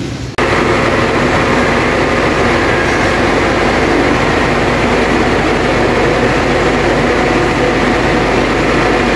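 Diesel bus engine running steadily, a loud low drone with an even hum; it cuts in suddenly just under half a second in.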